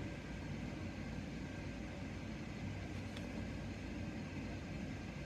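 Steady low background hum and hiss from a small room, with one faint tick about three seconds in.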